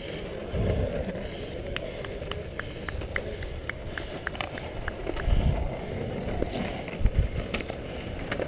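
Longboard wheels rolling on a concrete path as skaters push past, a steady rolling noise with a few low thumps, the loudest about seven seconds in, and scattered short high ticks.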